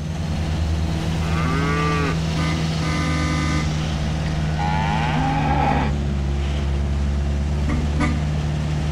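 Cattle mooing twice, about a second and a half in and again around five seconds, over a steady low engine hum from the truck. A short steady tone sounds about three seconds in.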